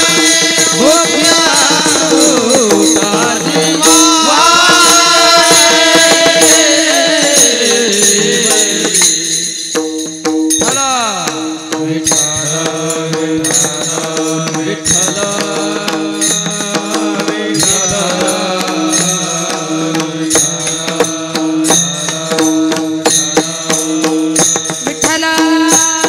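Marathi devotional kirtan music: a voice singing long, gliding notes over steady held accompanying tones, with quick, continuous strokes of small hand cymbals and drum.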